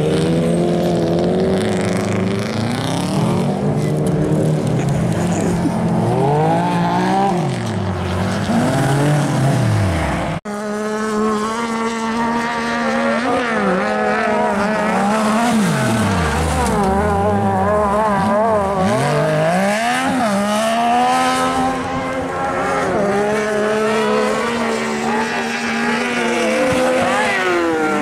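Subaru Impreza rally car's engine revving up and down as it slides through a corner. After a sudden cut about ten seconds in, a cross-kart buggy's engine revs hard, its pitch rising and falling quickly with throttle and gear changes.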